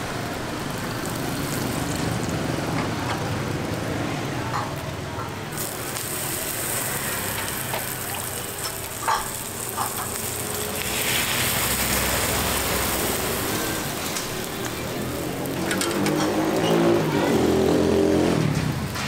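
Rice-flour batter sizzling in small hot bánh xèo pans, the hiss strengthening as batter is ladled in, against street traffic. Near the end a motor vehicle passes, its engine pitch dropping as it goes by.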